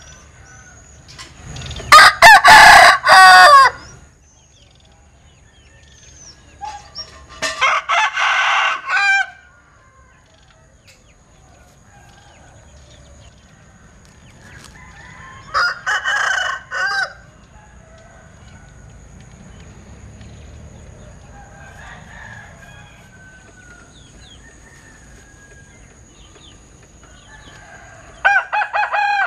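Linh Kê rooster crowing four times, each crow a drawn-out call of one to two seconds, the first the loudest; the last crow starts just before the end.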